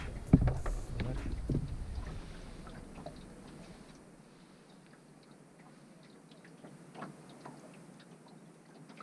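Handling noise in a small boat while a fishing rod is worked: a sharp knock about half a second in and a low rumble with clicks over the first few seconds, then quiet with a few faint ticks.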